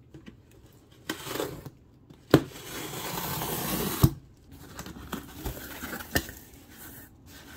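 A small knife slicing along the packing tape on a cardboard box: a short scrape, then a longer scraping rasp, with sharp knocks in between. Near the end, the cardboard flaps are handled and foam packing peanuts rustle.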